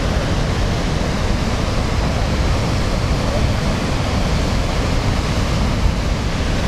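Niagara Falls: the steady roar of a huge volume of falling water, a constant rushing noise heavy in the low end.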